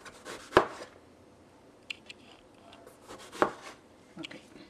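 Chef's knife cutting through eggplant and striking the cutting board: two sharp cuts about three seconds apart, with a few lighter knocks between them and near the end.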